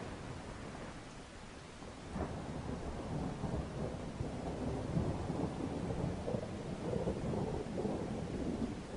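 Rolling thunder with rain: a low, rumbling noise that swells about two seconds in and keeps rolling.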